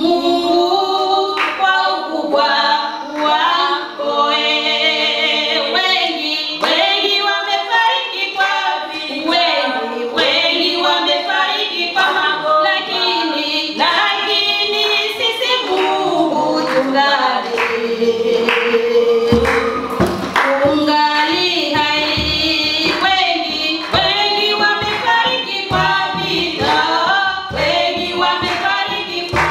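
Voices singing a Swahili worship song of thanksgiving, largely unaccompanied; about two-thirds of the way in, low thumps join in a rhythm.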